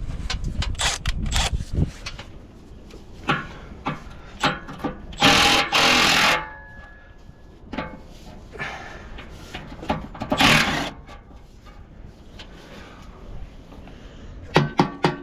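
Hand tools clicking and knocking on engine parts, with two loud one-second hisses about five and ten seconds in. Near the end a run of evenly spaced pitched strikes begins, the start of background music.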